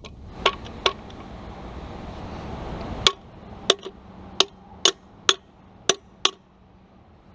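A string of sharp metal-on-metal taps and clicks from the exposed crankshaft and connecting rods of a 3.1L V6 engine block as the parts are worked loose by hand: two taps just after the start, then seven more about half a second apart from about three seconds in.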